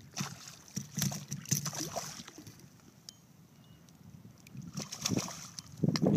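Hooked redfish thrashing at the water's surface, splashing in irregular bursts during the first two seconds and again near the end.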